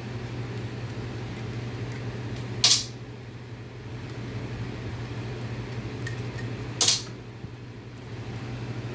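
Two short, sharp noises about four seconds apart as the halves of an aluminum soft-plastic bait mold are handled and pried apart, over a steady low mechanical hum.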